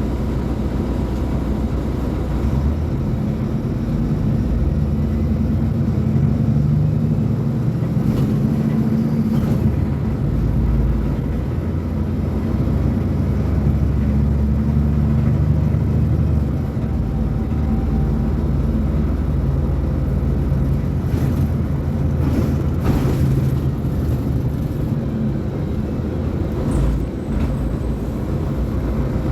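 Mercedes-Benz O500U bus diesel engine running, its note rising and falling as it pulls and eases off. A few brief knocks and rattles come in the second half.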